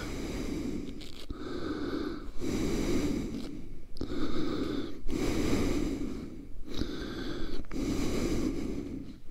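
A person breathing in and out in a steady rhythm of about seven breaths, each lasting roughly a second.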